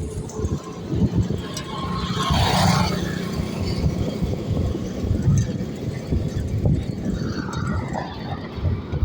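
Road traffic: a motor vehicle going past, loudest about two to three seconds in, over a continuous low rumble.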